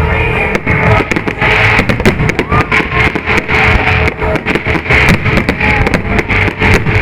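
Loud guitar-led music, with a rapid, dense run of sharp firework cracks and bangs starting about half a second in.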